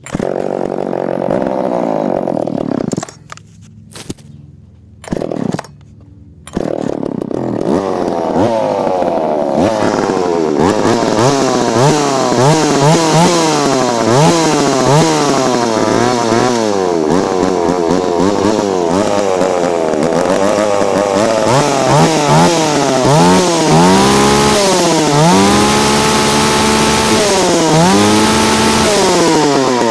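Alpina 330 two-stroke chainsaw engine running for a few seconds, cutting out, sputtering briefly twice, then catching and running on, revved up and down repeatedly with the throttle, with longer high revs near the end.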